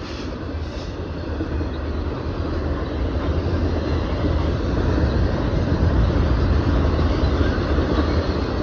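A freight train of double-stack container well cars and a tank car rolling past at close range: a steady rumble of wheels on rail that grows gradually louder.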